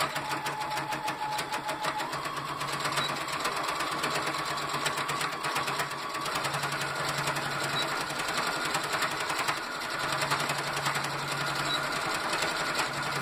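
Electric sewing machine stitching slowly through many layers of fabric, the needle making a fast, even clatter while the motor's pitch steps up a little twice. It is sewing back and forth across a bag strap to reinforce the seam.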